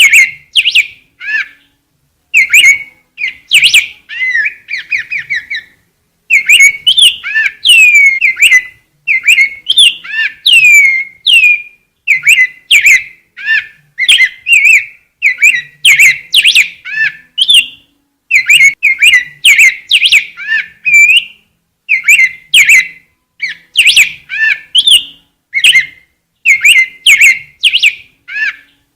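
Rey del bosque (a Pheucticus grosbeak) singing close up: rapid phrases of clear whistled notes, many sweeping down in pitch, repeated in runs of a second or two with short pauses between.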